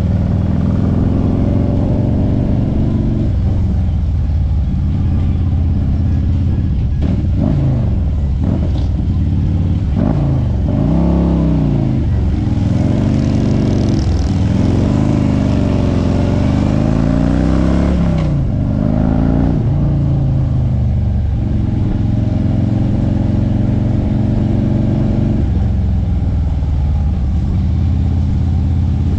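Harley-Davidson Street Glide's V-twin engine running under way, with a steady rumble. Through the middle stretch the engine pitch rises and falls several times as the throttle opens and closes, then settles again.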